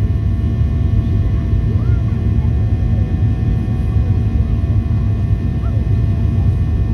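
Cabin noise of a Boeing 737 in the climb after takeoff, heard from a window seat beside the engine: a steady, loud low rumble of engines and airflow with several faint steady whining tones above it.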